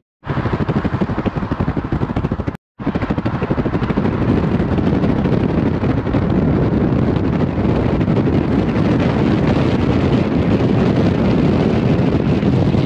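Steady rushing road and wind noise of a car driving at speed, with wind buffeting the microphone in a rapid flutter. The sound cuts out briefly about two and a half seconds in.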